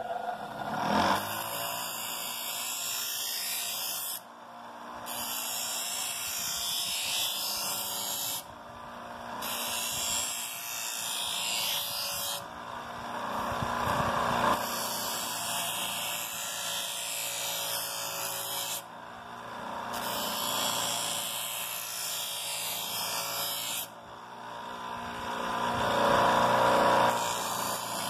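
Electric motor with an abrasive disc running steadily while a boomerang's edge is ground against it, a hissing grind in six passes of a few seconds each, with short breaks between them as the piece is lifted off.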